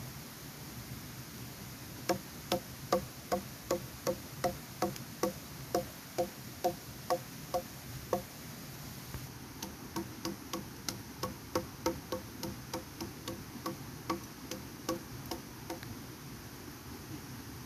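Regular, evenly spaced knocks with a woody ring, about two and a half a second for some six seconds. After a short pause a second, softer and slightly quicker run of knocks follows.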